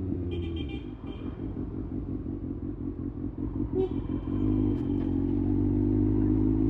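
Kawasaki Ninja ZX-6R inline-four engine with its revs low, running with an even low pulsing for a few seconds, then pulling away with the revs climbing smoothly from about four and a half seconds in. Two short high-pitched tones sound, one near the start and one about four seconds in.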